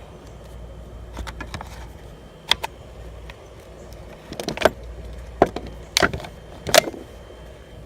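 Scattered knocks and clatter of wooden pallet boards and tools being handled, a few sharp ones about two and a half seconds in and a cluster of louder ones in the last three seconds.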